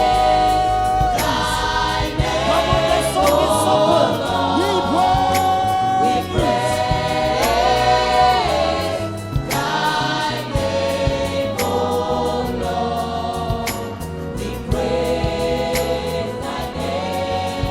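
Group of singers singing a gospel praise song together, over a band with bass and drums keeping a steady beat.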